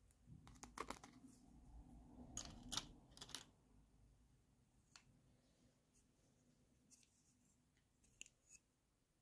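Small plastic toys being handled, with soft clicks and clatter as a plastic toy comb is set down in a miniature wire shopping cart among other toys: a flurry of light clicks in the first few seconds, then a few scattered single taps.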